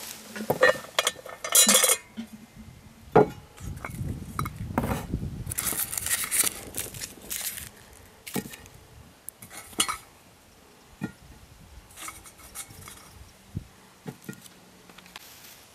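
Camp cookware and utensils being handled: irregular clinks and knocks of pots, lids and cutlery, busiest in the first half and sparser after about eight seconds.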